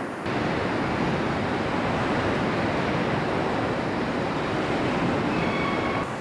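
Steady, even rushing noise of a truck assembly plant floor, with a faint high whine shortly before it drops away near the end.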